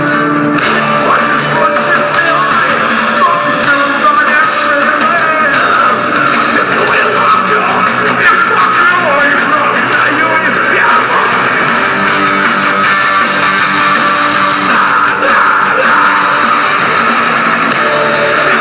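Loud rock music with distorted electric guitar and a shouted vocal, running without a break.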